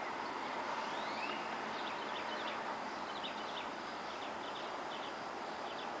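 Birds chirping in quick clusters of short high notes every second or so, with one rising whistle about a second in, over a steady hum of distant traffic.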